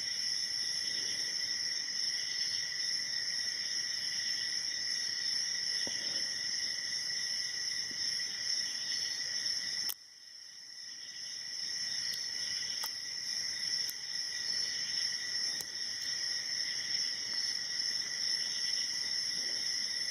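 Steady high-pitched chorus of crickets, which drops out suddenly about halfway and swells back over a couple of seconds. A few faint clicks from the lock picks working in a padlock.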